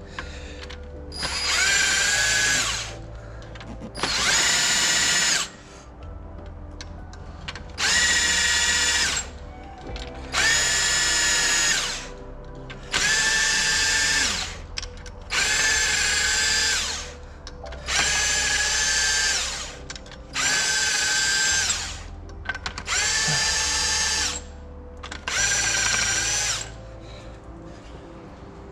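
Cordless power tool motor whining in about ten short runs of a second or two each, spinning out cylinder head bolts one after another.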